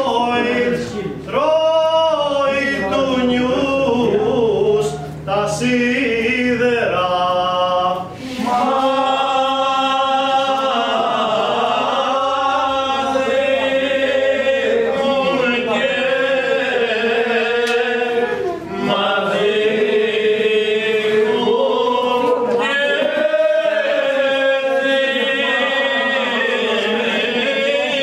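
Men's voices singing unaccompanied in long, drawn-out phrases, with short breaks for breath between them.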